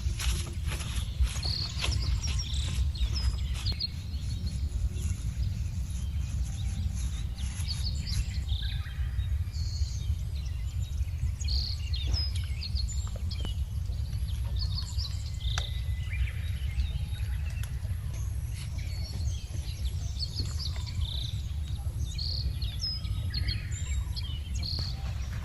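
Outdoor ambience: scattered short bird chirps over a steady low rumble, with a few faint clicks.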